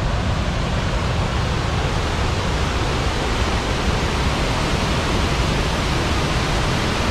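A large waterfall's steady rush of falling water, close by and full at the low end.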